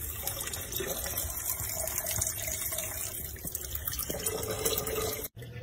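Kitchen tap running a thin, steady stream of water that splashes onto a cat's head and into a steel sink. The sound cuts off abruptly near the end.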